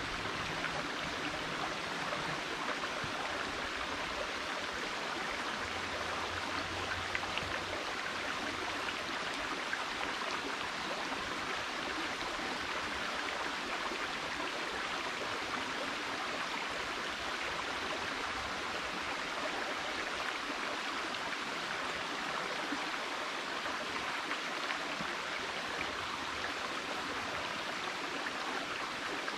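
Shallow rocky creek babbling steadily over stones.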